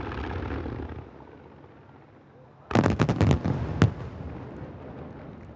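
Aerial firework shells of a star mine barrage bursting. A crackling rumble dies away in the first second, then about three seconds in comes a rapid cluster of six or seven sharp bangs, followed by a long rolling echo.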